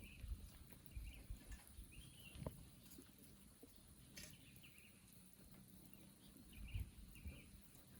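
Near silence outdoors, with faint short bird chirps every second or so and a few faint low rumbles.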